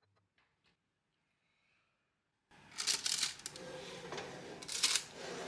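Near silence for about two and a half seconds, then a steady hum and several clattering knocks of a metal baking tray being handled as it is taken out of the oven.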